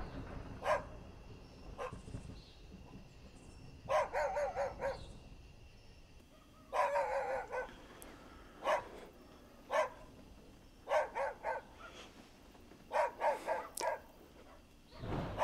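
A dog barking: single barks and quick runs of three or four barks, repeated with pauses of a second or two between them.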